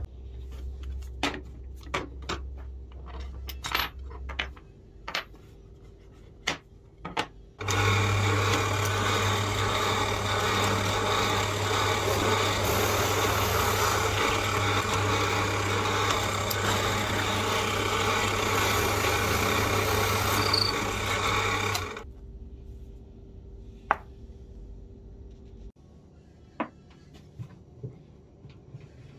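Drill press running for about fourteen seconds while boring a hole in a wooden block: a steady motor hum under a broad hiss, starting suddenly about eight seconds in and cutting off near twenty-two seconds. Before it, a string of sharp clicks and knocks from parts being handled.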